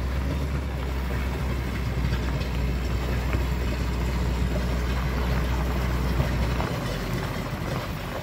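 The steady low drone of a motor grader's diesel engine working the road ahead, over a constant rush of bike tyres on loose gravel and wind on the microphone. The engine drone drops away near the end.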